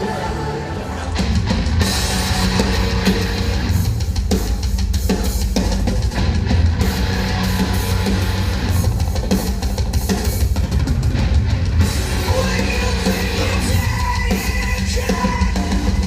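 Rock band playing live at full volume, drum kit and guitars, with the band kicking in fully about a second in.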